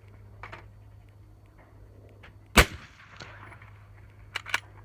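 A single suppressed rifle shot: a 24-inch 6.5 Creedmoor Accuracy International AXMC firing Hornady 140 ELD through a Thunder Beast 30-calibre 5-inch Ultra suppressor. It is a sharp crack with a short fading tail, metered at 142.5 dB A-weighted peak at the MIL-SPEC position. Two light clicks follow near the end.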